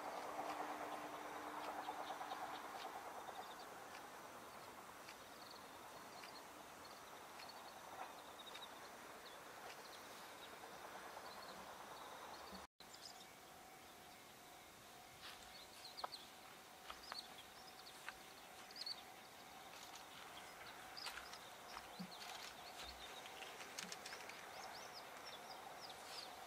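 Faint outdoor ambience: an electric train fading away over the first few seconds, then scattered short bird chirps over a quiet hiss. A faint steady tone comes in about halfway through.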